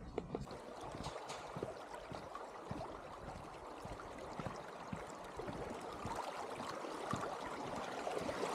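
Running water: a steady rush with small scattered ticks, growing a little louder toward the end.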